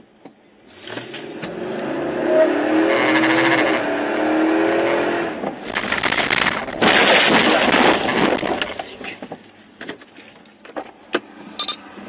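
Car on the road with a wavering squeal partway through, then a loud rushing noise and a few sharp clicks near the end.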